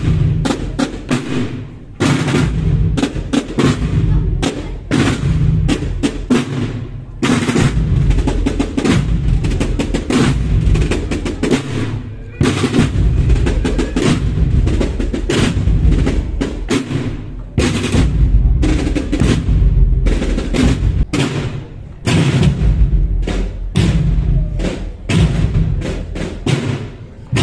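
A marching drum corps beating wood-shelled field drums with sticks in a steady processional cadence. Short breaks in the pattern come about every five seconds.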